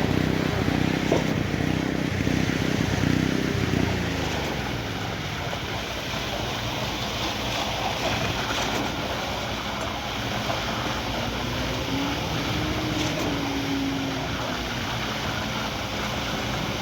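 Heavy diesel engine of a concrete pump truck running at high revs, then slowing with a falling pitch about three and a half seconds in. Later it idles and briefly rises and falls in pitch once.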